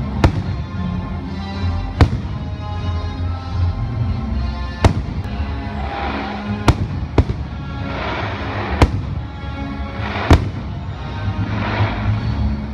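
Aerial fireworks shells bursting overhead: about seven sharp bangs a second or two apart, with bursts of crackle between them, over music playing along with the display.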